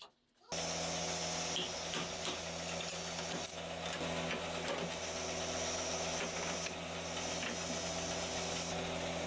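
Workshop machine running with a steady electric hum and a high hiss, with faint clicks and rattles; it starts suddenly about half a second in.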